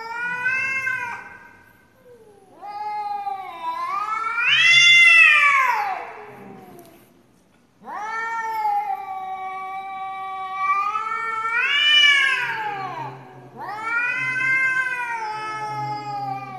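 Two cats squared off and yowling at each other in an aggressive standoff: a string of long, drawn-out caterwauls that rise and fall in pitch, with short breaks between them. One call is held fairly level for several seconds in the middle.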